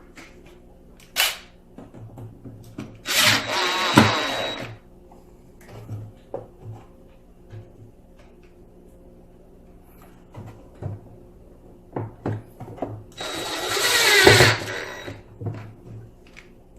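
Power drill driving screws into pre-drilled holes, in two runs of about a second and a half each, one about three seconds in and one near the end, with a brief trigger blip before the first. Small knocks and clicks of handling come in between.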